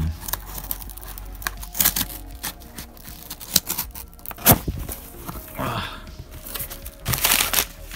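Craft knife slitting the packing tape on a cardboard mailer box, then the cardboard flaps scraped and pulled open, with scattered clicks and rustles. A sharp click comes about halfway through and a louder rustle near the end.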